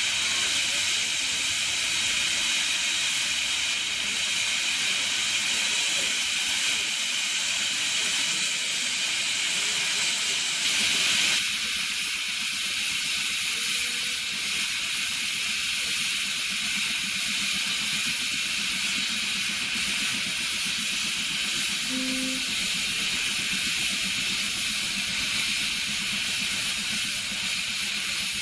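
Steam hissing steadily from a small saddle-tank steam locomotive standing with steam up, blowing off, briefly louder about eleven seconds in.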